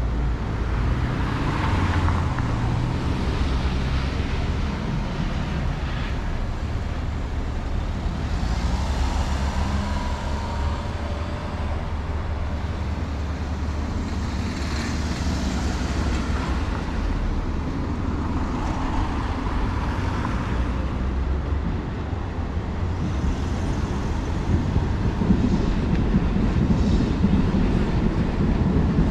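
City street traffic: a steady low rumble of cars and other vehicles, with passing swells as they go by. It grows a little louder near the end.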